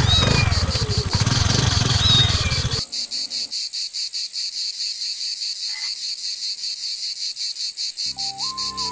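Crickets or other night insects chirping in a steady rapid pulse. For the first three seconds a loud low rumbling noise drowns them and then cuts off abruptly; a soft melody begins near the end.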